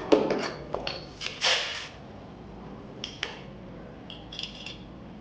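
Tools and metal parts being handled during refrigerator repair: a quick series of knocks and clatters with a short rush of noise, then a few lighter clicks and small ringing metallic clinks.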